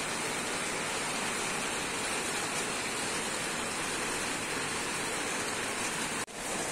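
Heavy rain falling steadily on a wet paved alley, an even hiss of rain, with the sound dropping out for an instant near the end.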